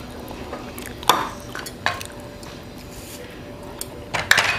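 A few knocks and clinks of a spoon and utensils against a glass mixing bowl while mashed banana is added to batter: one about a second in, one just before two seconds, and a louder cluster near the end, with a faint ring after them.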